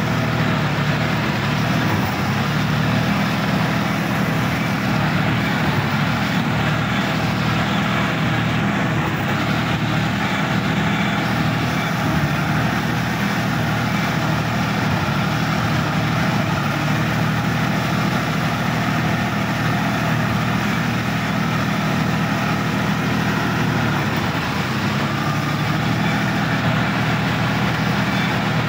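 Sonalika DI-50 RX tractor's diesel engine running at a steady low pitch as the tractor drives slowly through a flooded, muddy paddy field, heard close up from the driver's seat. The note eases briefly near the end.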